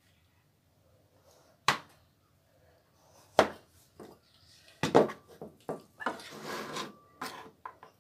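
Scattered sharp knocks and clatters of kitchen utensils, with a short scraping stretch about six seconds in; near the end a knife cuts into a block of cooking chocolate on a plastic chopping board.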